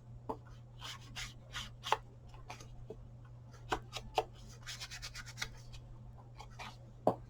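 Paper rustling and rubbing with light taps and clicks as paper pieces are handled and pushed into a tag pocket, over a steady low hum.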